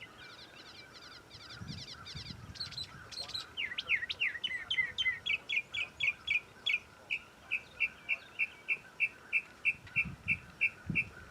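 Songbirds singing in the open: a run of quick down-slurred whistled notes, then from about halfway a bird repeating one short chirp steadily, about three a second.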